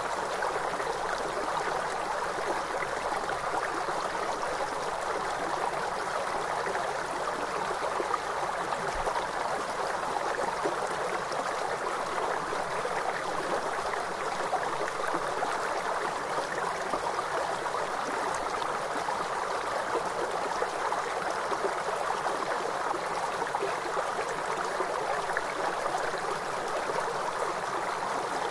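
Flowing river water rushing steadily, an even unbroken wash of sound.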